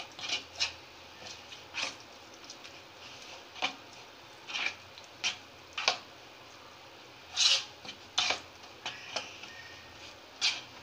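A spoon stirring thick semolina, curd and water batter in a plastic bowl: about a dozen short scrapes and squelches at an uneven pace, the loudest about seven and a half seconds in.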